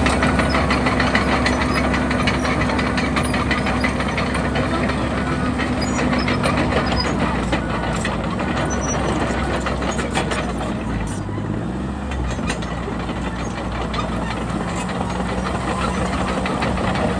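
Komatsu D31PX crawler bulldozer's diesel engine running under load, with many short knocks and clanks. The engine note drops about halfway through and picks up again near the end.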